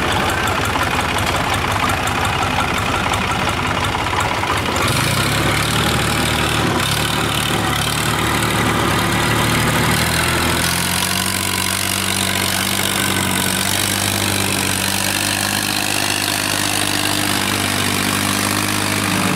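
Longtail (shrimp-tail) boat engine running steadily while driving a barge under way. Its note shifts slightly about five seconds and again about ten seconds in.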